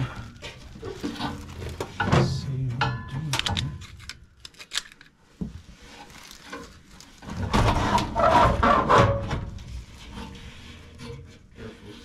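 A long sheet-metal bracket being handled and worked into a furnace cabinet: irregular scraping, rubbing and light metal knocks, with a louder stretch of clatter past the middle.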